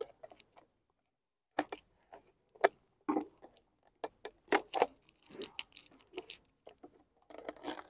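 Cut-up plastic bottles being handled: irregular light clicks, clacks and crinkles of thin plastic. They come thicker near the end.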